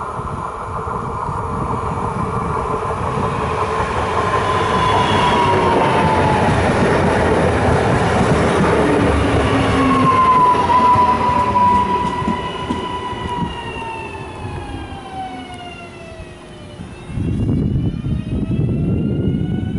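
PESA Elf 2 (36WEd) electric multiple unit passing at speed: a rush of wheels on rail builds up, with a traction-motor whine that falls in pitch as the train goes by and fades away. Near the end the sound switches abruptly to another Elf unit close by, with its motor whine rising in pitch.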